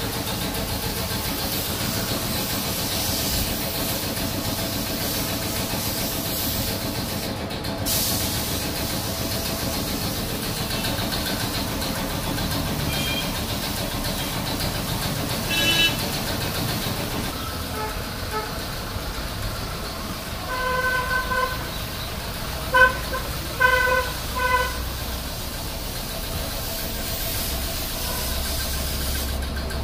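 Steady street and yard background noise, with a vehicle horn honking several short times about two-thirds of the way through.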